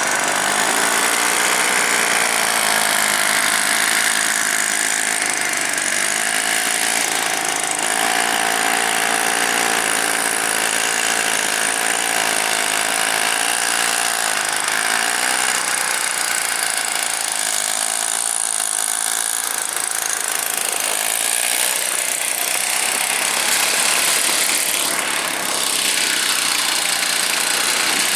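Two-stroke engine of a Druzhba chainsaw running a homemade snowblower, its speed wavering up and down every couple of seconds.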